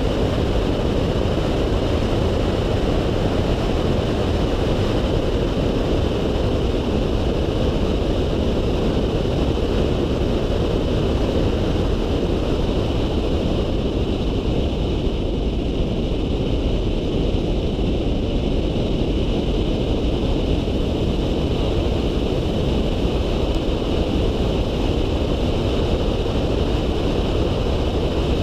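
A Volkswagen Polo 9N3 driving at a moderate pace, heard through a camera mounted outside on the car. It is a steady rush of wind on the microphone over road and engine noise, with a faint, steady high whine above it.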